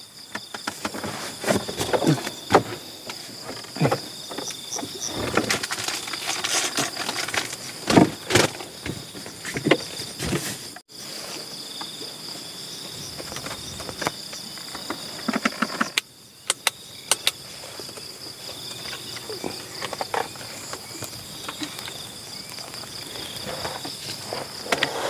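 Insects chirring steadily in a high, even drone, with irregular knocks and clicks of movement and handling scattered over it.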